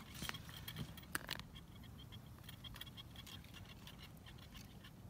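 Faint, rapid ticking and a few scratchy clicks as fishing line is wound by hand back onto the spool of a wooden ice-fishing tip-up, over a low steady rumble.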